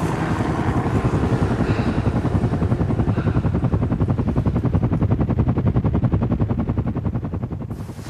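Helicopter hovering low, its rotor blades giving a fast, even chop that eases off near the end.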